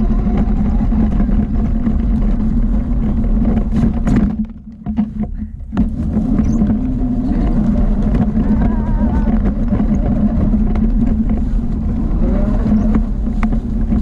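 ATV engine running steadily on the trail, dropping off briefly about four to six seconds in before picking back up.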